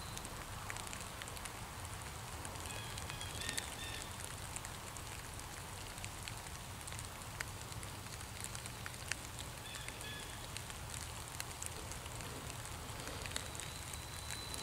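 Quiet hardwood forest ambience: a steady low hiss and rumble with scattered light ticks and patters, and faint high bird calls a few times.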